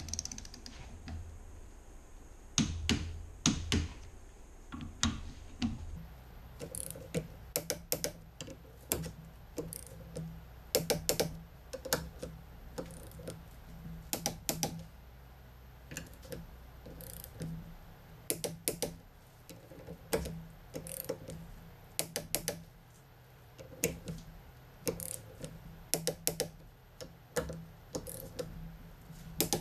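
Ratcheting torque wrench clicking in short, irregular runs as the ring gear bolts on a Dana 30 differential carrier are tightened to 50 foot-pounds.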